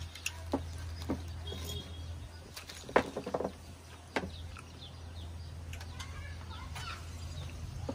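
Eating sounds from a seafood papaya salad: scattered short clicks and crunches, the loudest a quick cluster of several about three seconds in, over a steady low hum.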